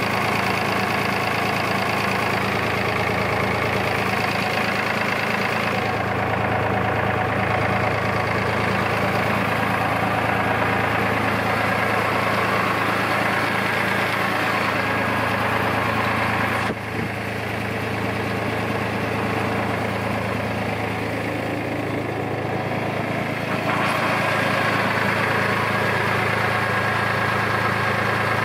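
David Brown 780 Selectamatic tractor's diesel engine idling steadily, a little quieter for a few seconds just past halfway.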